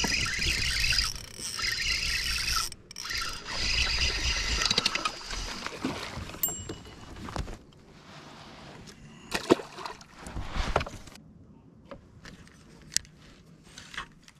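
A bass being fought to the kayak and landed: about five seconds of loud, busy reeling and splashing, then scattered knocks, clicks and rubbing as the fish is handled on the deck.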